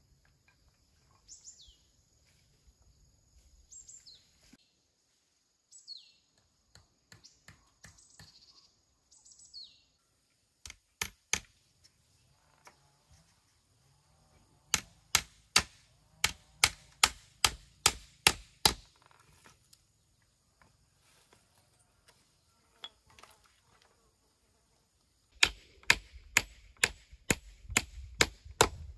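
Hammer driving nails into wooden sticks. It starts with a few single blows, then comes in runs of quick, sharp strikes about three a second, which are the loudest sounds. Before the hammering, a bird repeats a short falling call every second or two.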